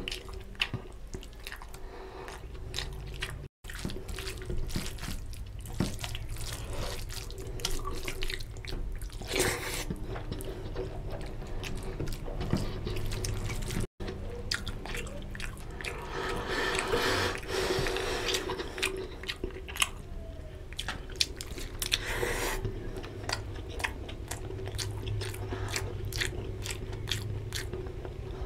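Wet squishing, squelching and smacking of fingers mixing basmati rice into curry gravy on a plate, with many small sticky clicks. The sound drops out for an instant twice.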